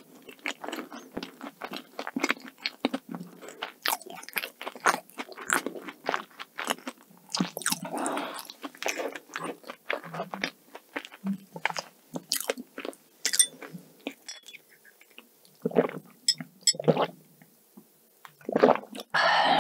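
Close-miked chewing of cake, a dense run of small mouth clicks. Near the end she sips a drink through a metal straw.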